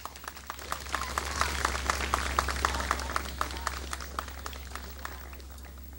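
Audience applauding with scattered hand claps that build to a peak in the first couple of seconds, then thin out and fade near the end, over a steady low hum.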